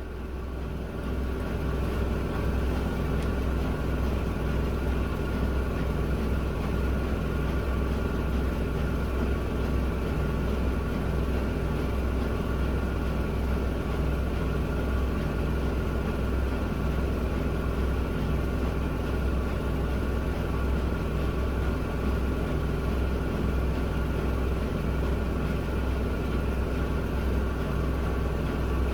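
Miele W1 front-loading washing machine spinning its drum at a steady high speed, a low rumble with a constant motor whine.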